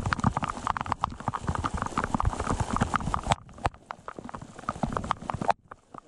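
Heavy rain: a dense, irregular patter of drops striking close by on plastic rain ponchos and the lake surface. The patter thins out about three seconds in and nearly drops away just before the end.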